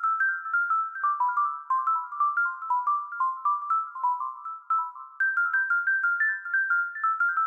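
Background music: a high, bell-like melody of quick single notes with no bass, pausing briefly about five seconds in.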